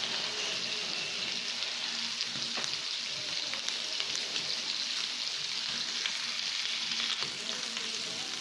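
Chicken and pork adobo pieces sizzling steadily as they fry in oil and rendered fat in a wok, with scattered small pops and crackles. The meat has been simmered in the adobo sauce and is now being browned.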